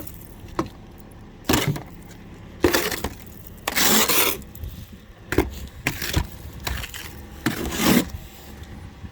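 Glaze ice from freezing rain crunching and cracking in about eight short, irregular bursts, the longest about four seconds in.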